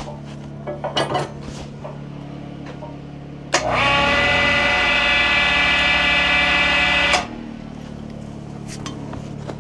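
Electric hoist winch running for about three and a half seconds with a steady motor whine, starting and stopping abruptly, as it lifts or rolls the log on the mill. Before it, a few light knocks over a steady low hum.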